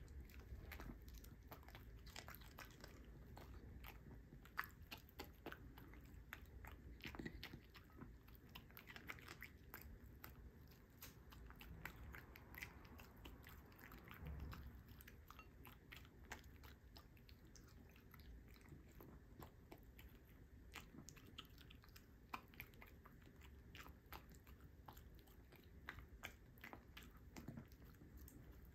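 Miniature dachshund chewing and crunching diced summer vegetables: an irregular run of faint, crisp crunches and clicks.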